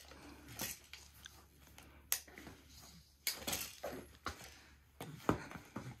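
Faint, scattered clicks and light knocks of a baby handling his toys.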